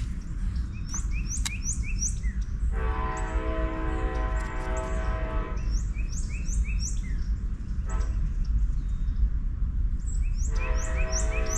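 Birds chirping in repeated short, quick notes while a long, steady horn blast of several tones sounds twice, once for about three seconds and again near the end. A constant low rumble runs underneath.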